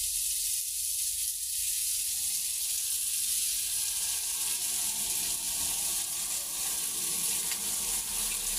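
Pieces of chicken sizzling steadily on a round electric griddle plate.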